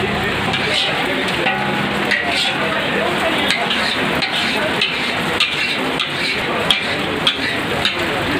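Flat metal scraper scraping around a large iron kadhai coated with thickened milk, in repeated strokes about every two-thirds of a second, over a steady hiss from the hot pan.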